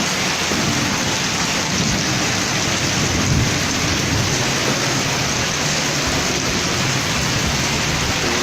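Heavy rain pouring down steadily as a dense, even hiss, with a low rumble underneath.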